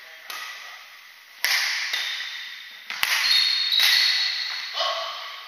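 Badminton rally: several sharp racket strikes on a shuttlecock and short high squeaks of court shoes on a wooden floor, ringing in a reverberant hall.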